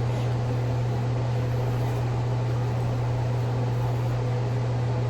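Steady low hum over an even hiss: continuous room background noise, with no change in pitch or level.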